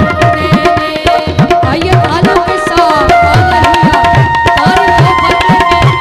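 Live devotional song accompaniment: tabla-style hand drums playing a steady rhythm of about two strokes a second, the low strokes bending upward in pitch, under held melody notes.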